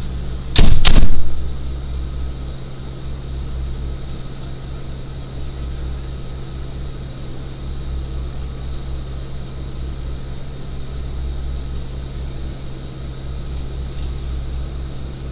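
An ambulance's rear doors slam shut with two loud bangs about a second in, then a steady low hum from the ambulance's running engine fills the patient compartment.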